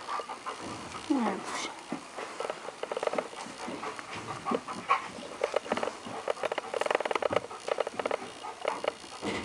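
Rustling and scuffling of a quilted dog bed and a leash as a small, frightened dog shifts and climbs off it, with a short falling whine from the dog about a second in.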